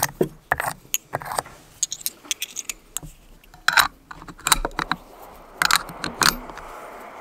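Brass .308 Win cartridges being pressed one by one into an Anschütz 1782 steel box magazine: an uneven series of sharp metallic clicks and clinks as each round is seated.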